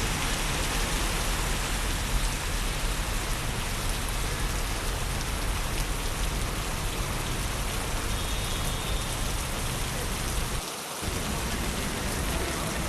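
Steady rain falling on a city street, a constant even hiss of drops on wet pavement.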